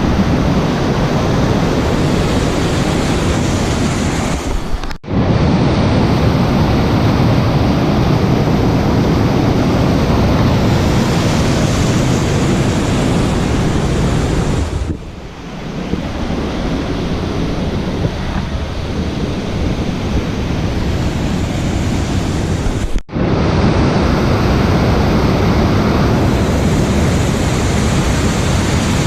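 Waterfall on a rain-swollen creek, its water rushing in a loud, steady, unbroken noise. The sound cuts out for an instant twice and dips briefly about halfway through.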